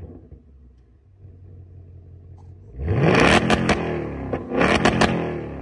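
2024 Mustang GT's 5.0-litre V8 exhaust, through a Steeda H-pipe in track mode, idling low and then revved hard twice, about a second and a half apart, with sharp cracks near the top of each rev.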